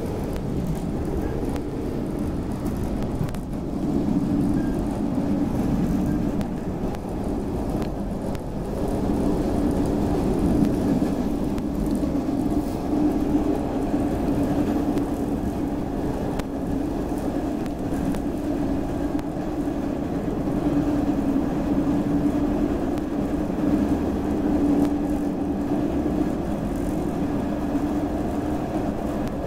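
CTA Blue Line 2600-series rapid-transit car running at speed, heard from inside the car: a steady rumble of wheels on rail with a low hum, swelling now and then.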